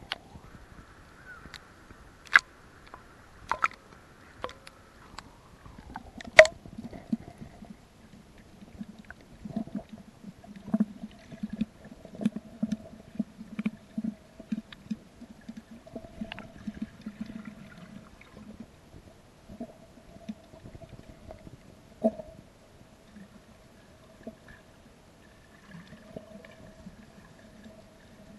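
Underwater sound heard through a waterproof action-camera housing, muffled, with a few scattered sharp clicks and knocks. A steady hum sets in about six seconds in and holds, with an irregular low pulsing in the middle stretch.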